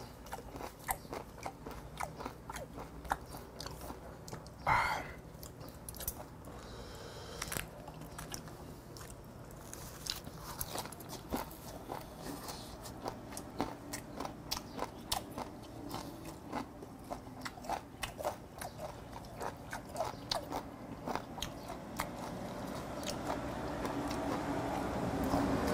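Close-up chewing and biting: a person eating raw mudskipper sashimi wrapped in fresh leaves, with many small wet crunches and mouth clicks. One short, louder sound comes about five seconds in.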